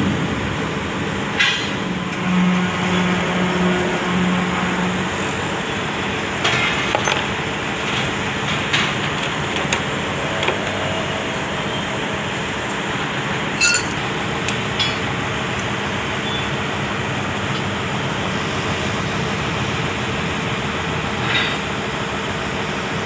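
Steady din of heavy construction machinery running, with a low hum in the first few seconds and a few sharp clicks and knocks scattered through it.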